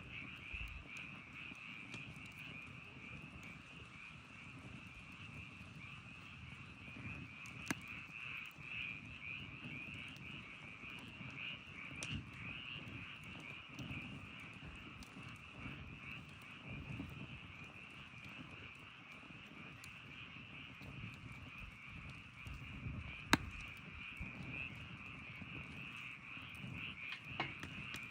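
Campfire burning, with a low rustle and scattered sharp crackles and pops, the loudest about 23 seconds in. Under it runs a steady, high, pulsing chorus of calling animals.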